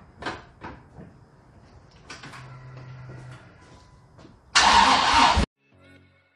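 Dodge Viper GTS's V10 being started: a few clicks and a low steady hum, then the engine fires loudly for about a second and cuts off abruptly.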